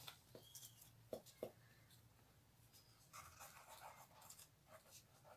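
Faint handling noises of a plastic white-glue bottle and cardboard: a few light clicks in the first second and a half, then soft scratchy rustling a few seconds in as glue is squeezed onto a torn cardboard strip.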